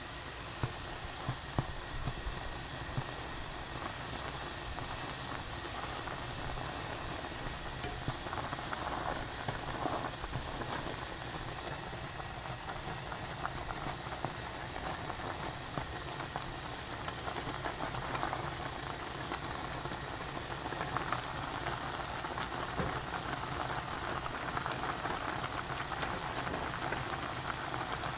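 Instant ramen boiling hard in a stainless saucepan on a gas burner: a steady bubbling hiss, with a metal spoon stirring the noodles and now and then clicking against the pot.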